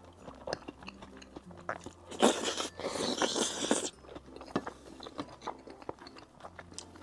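Close-miked chewing of a mouthful of mixed rice and braised pork: a run of small wet clicks and crunches, with a louder noisy stretch of about a second and a half midway.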